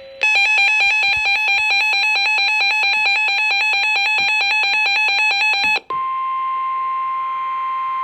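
Emergency alert tones before a severe thunderstorm warning. First a loud electronic alarm warbles rapidly between a low and a high pitch for about five and a half seconds. It breaks off and is followed by a single steady tone, the 1050 Hz weather radio warning alarm tone.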